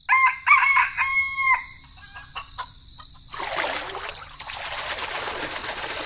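A rooster crowing: a few short notes and then one long held note. From about three seconds in, a steady hiss follows.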